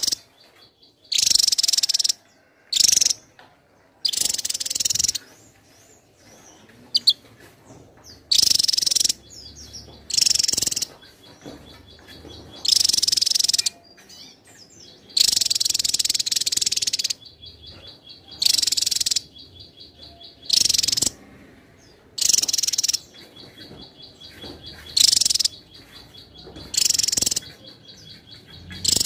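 Javan tesia singing a string of loud, high, rapid song phrases, each half a second to two seconds long, about a dozen in all with short pauses between. A faint, steady pulsing high trill carries on in many of the pauses.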